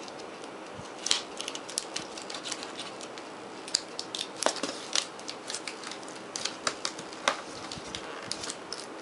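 Packing tape on a cardboard box being picked at and peeled back by hand: irregular scratching, crackling and sharp clicks.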